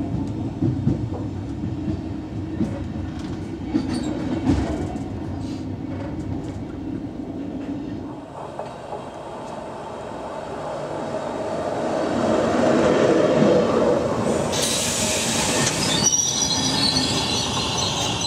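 A train rolling along, heard from the driver's cab, with a steady low rumble and scattered clicks over rail joints. Then a Silberling (n-Wagen) push-pull train of German regional coaches, its control car leading, approaches and passes close by, growing louder. A burst of hiss comes as it goes by, then high-pitched wheel squeal through the last couple of seconds.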